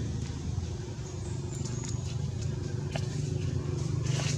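Steady low hum of a running engine, with a few faint clicks and a short hiss near the end.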